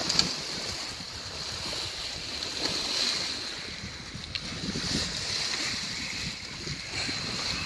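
Sea water rushing and splashing along a moving sailboat's hull, with wind on the microphone; a short louder splash comes just after the start.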